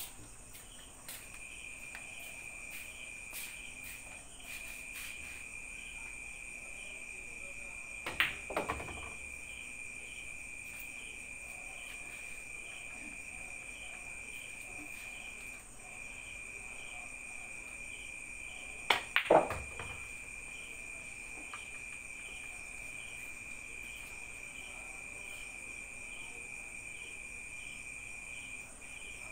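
Crickets chirping steadily in a high, pulsing trill. Two louder pool-ball clacks break through it: one shot about eight seconds in and another, with a couple of quick knocks, a little after the middle.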